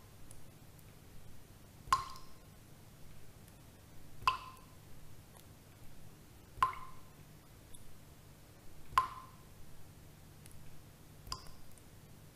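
Five single knocks or drips, evenly spaced about every two and a third seconds, each with a short ringing tone, and fainter ticks between them over a faint low hum: a looping eerie background sound effect.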